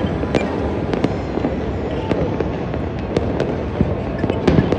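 Many fireworks and firecrackers going off at once: a continuous rumble of overlapping bangs, with many sharp cracks throughout and a denser burst of cracks near the end.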